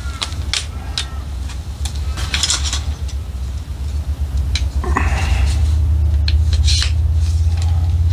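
Aluminium camp-cot poles and plastic feet clicking and clattering as they are pushed together by hand. A low rumble underneath swells about five seconds in and grows louder.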